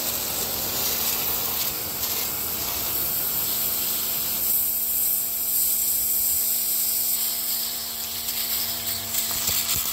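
Hyundai 105-bar high-pressure washer running, a steady pump hum under the loud hiss of its water jet blasting a raw potato.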